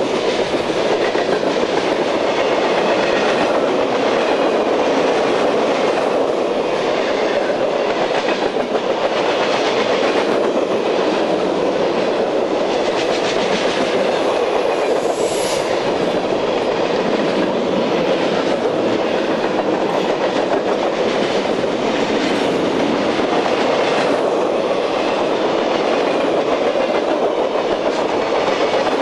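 Freight train cars rolling past close by at speed: a steady loud rumble of steel wheels on rail with continual clickety-clack over the rail joints. A brief high-pitched squeal comes about halfway through.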